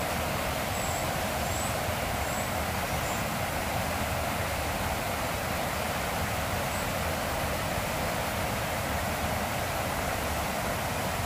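Creek water pouring over a dam: a steady, even rush.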